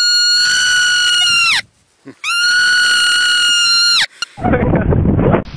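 A marmot screaming: two long, piercing, steady-pitched screams of about two seconds each, each falling away at its end. Just before the end they give way to a short burst of rough, lower noise.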